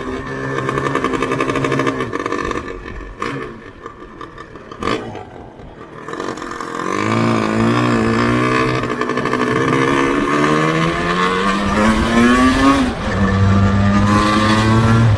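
Yamaha RZV500R's two-stroke V4 engine on the road: steady at first and eased off for a few seconds, then accelerating with a rising pitch until a gear change about thirteen seconds in, after which it holds a steadier note.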